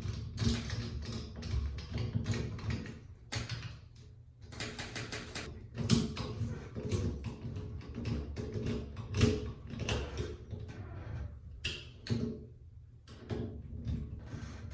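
Doorknob's long mounting screws being driven in: irregular metallic clicking and scraping of the screws and knob hardware, with a short pause about four seconds in.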